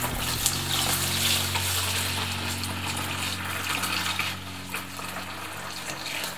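Racked banana wine poured in a steady stream from a plastic container into a plastic bucket, splashing and frothing as it lands. The pouring aerates the wine to help it clear.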